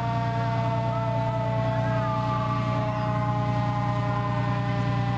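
Parked fire truck's engine idling with a steady low hum, under a steady whine that slowly drops in pitch. Faint children's voices come and go over it.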